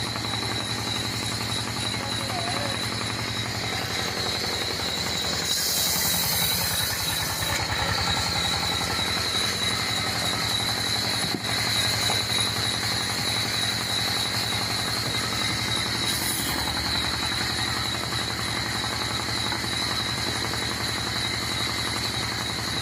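Motor-driven wood saw machine running steadily with a low hum and a constant high whine. Brief bursts of hiss come about five and a half seconds in and again around sixteen seconds.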